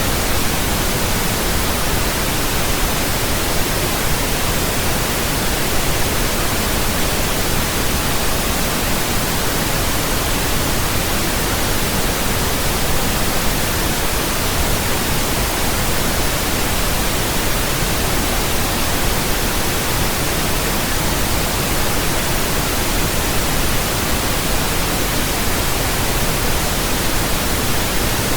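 Steady pink noise: an even, unchanging hiss spread across all pitches, deeper than white noise.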